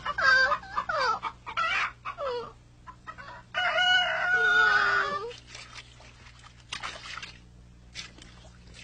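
Rooster clucking in a run of short calls, then a longer, louder crowing call about three and a half seconds in; a few faint clicks follow in the quieter second half.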